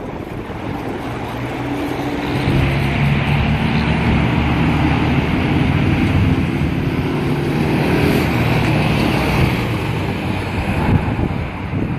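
Engine of a 125cc four-stroke full-size ATV running under way as it is ridden past, growing louder over the first few seconds as it approaches, its pitch rising and falling with the throttle.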